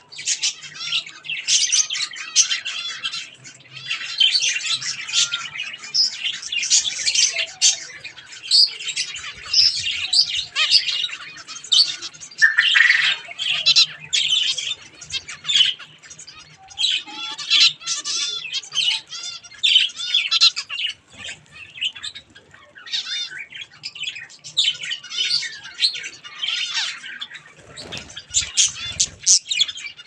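A flock of zebra finches and budgerigars calling over one another: a dense, continuous chatter of short high chirps, with a brief low rustle near the end.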